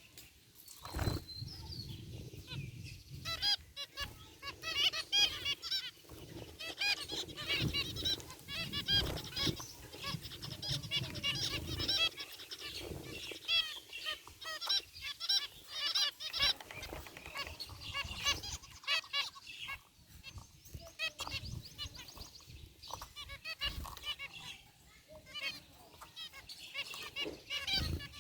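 A flock of zebra finches calling: a dense chatter of many short, repeated, overlapping calls, with a few low thumps.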